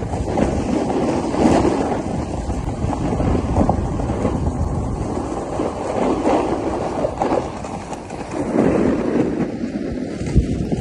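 Wind rushing over the phone's microphone during a downhill ski run, a steady low roar that swells and eases, with skis hissing over the groomed snow.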